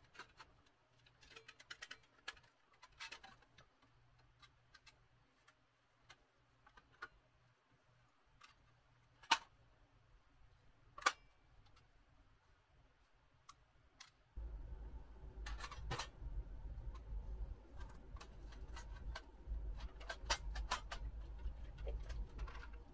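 Light, irregular metal clicks and taps as the polished pressed-steel parts of a 1940s Marx DC-4 toy airliner are handled and fitted together by hand, with two sharper clicks near the middle. A low steady rumble comes in suddenly about two thirds of the way through.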